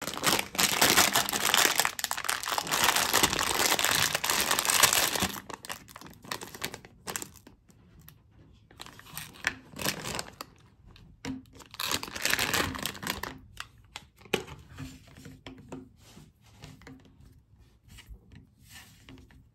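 A plastic candy bag of gummy worms crinkling loudly as it is handled and torn open for about five seconds. Then comes softer, intermittent rustling, with a second loud burst of crinkling around twelve seconds in as a hand digs into the bag. Light rustles and taps follow as the worms are handled on a wooden cutting board.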